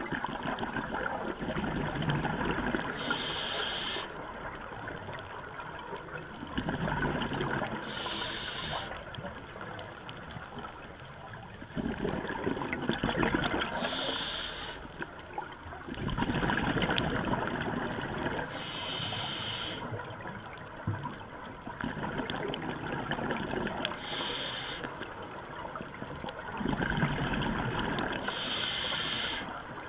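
A scuba regulator breathing underwater, heard through the camera's housing. It runs in a cycle about every five seconds, about six times: a swell of bubbling from the exhaled air and a short, bright hiss.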